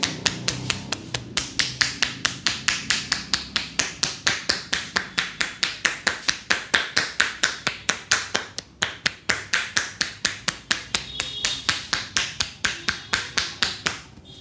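A barber's hands rapidly tapping and slapping on a head in an Indian head massage: an even run of sharp slaps, about four or five a second, with a short break about nine seconds in, stopping just before the end.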